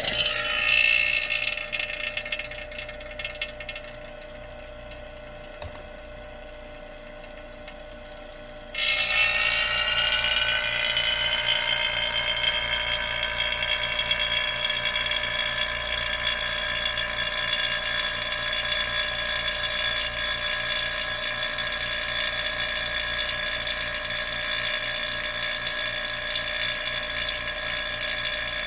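A motor-driven machine whining: a loud start that fades over the first few seconds, then about nine seconds in a sudden louder start-up whose whining tones rise slightly in pitch as it comes up to speed and then run steadily.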